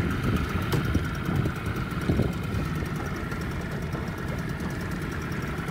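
Modified Tohatsu 5 hp two-stroke outboard, ported with a high-compression head, idling steadily and smoothly.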